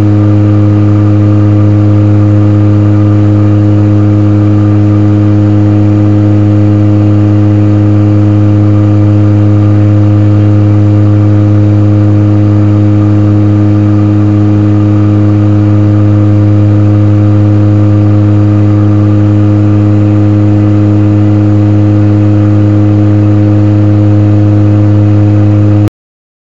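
A Fairchild Metroliner's Garrett TPE331 turboprop and propeller running steadily in flight, heard from inside the aircraft: a loud, even drone with a strong low hum and a ladder of higher tones that holds one pitch throughout, cutting off suddenly near the end.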